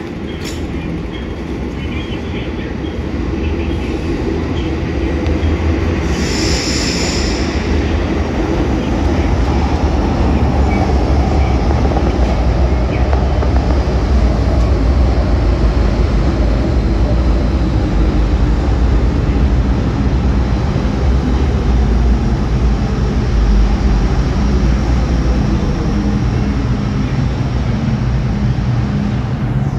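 MTR M-train electric multiple unit pulling into an underground station: a heavy low rumble of wheels on track builds as it arrives, with a brief high wheel squeal about six seconds in. Through the middle, a faint motor whine falls in pitch as the train brakes, and a steady low hum is left as it comes to a stop near the end.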